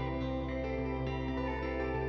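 Soft background music: gentle instrumental with sustained keyboard and plucked guitar tones.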